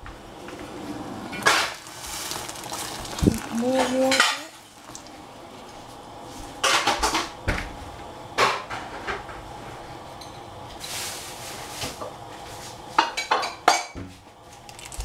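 Metal pots, dishes and utensils being handled, with sharp clinks and knocks coming in clusters, over a steady low hiss.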